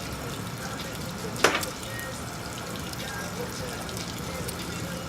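Water running and spattering from a leaking pipe on a hazmat leak-training prop, a steady hiss with small drips. There is one sharp knock about a second and a half in.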